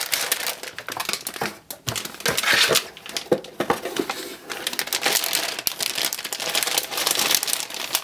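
Metallic anti-static shielding bag crinkling and rustling as it is handled and pulled open around a motherboard, in dense irregular crackles with a couple of brief lulls.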